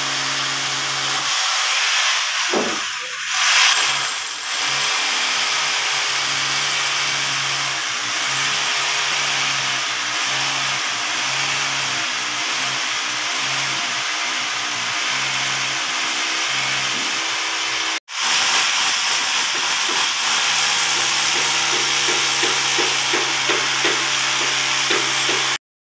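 Electric rotary hammer drill boring into a reinforced-concrete column, running steadily under load, drilling a hole for a rebar dowel. The sound cuts out for an instant about two-thirds of the way through, then resumes and stops abruptly just before the end.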